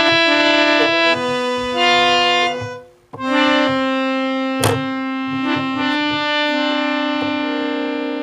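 Held chords on a reedy-sounding keyboard instrument, changing about once a second. The notes break off briefly about three seconds in, and a sharp click sounds near the middle.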